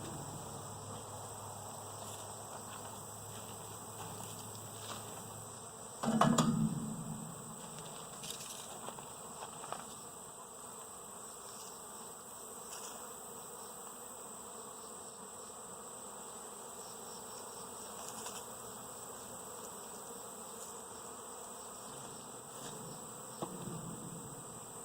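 Honeybees buzzing steadily around an open hive. A brief, louder knock about six seconds in stands out above the buzzing.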